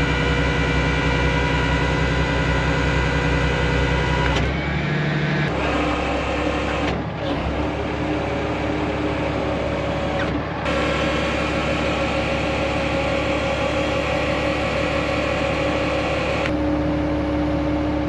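Truck engine running steadily, its tone shifting slightly a few times.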